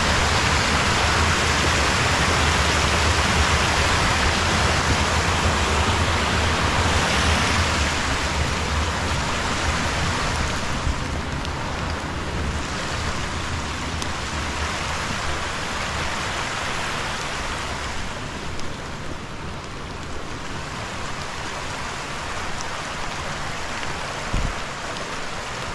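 Steady rushing of a small woodland stream, louder for the first ten seconds or so and then easing off.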